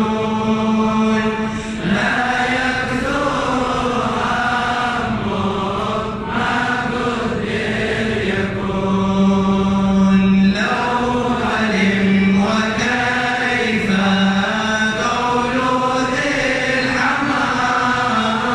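A large group of men chanting a devotional Arabic poem together in unison, a slow melody with long held notes and short breaks between lines.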